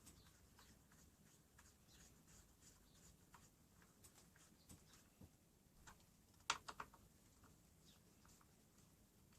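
Faint clicks and taps of hand work fitting the dust extraction port onto a circular saw, with a quick run of three louder clicks about two-thirds of the way through.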